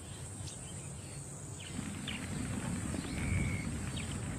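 Savanna wildlife ambience: a steady high insect drone with a few short bird chirps over it. A low rumbling noise swells in from about two seconds in.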